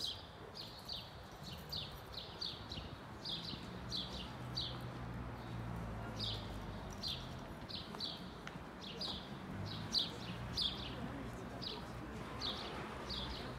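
A small bird chirping over and over: short high notes that fall slightly in pitch, about two a second, with a low steady hum underneath.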